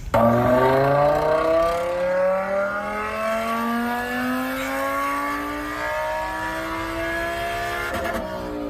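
A motor vehicle's engine accelerating, its pitch rising slowly and steadily, with a brief break about eight seconds in.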